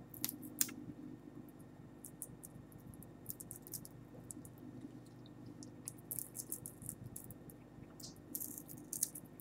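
Scattered small dry crackles and clicks from the brittle shell of a dried giant water bug (Lethocerus indicus), coming in loose clusters, over a faint steady low hum.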